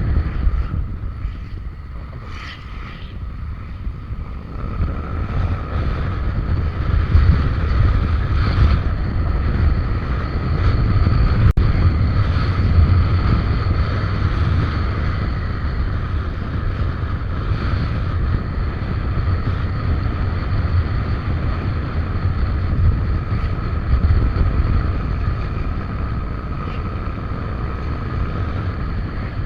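Wind buffeting the microphone on a moving Suzuki Avenis scooter, over the scooter's steady engine drone with a constant whine. It eases off for a few seconds near the start, and there is one sharp click about twelve seconds in.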